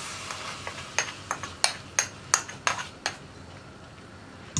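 Metal ladle and steel spoon clinking against the rim of a large aluminium pot while stirring milky payasam: a quick run of sharp clinks between about one and three seconds in, then quieter stirring.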